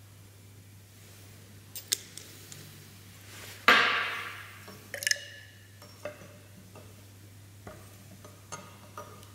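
Glass test tubes clinking and tapping as they are handled in a wooden rack. There is one loud ringing clink about three and a half seconds in, a ringing double clink a little later, and lighter taps scattered around them, over a faint low hum.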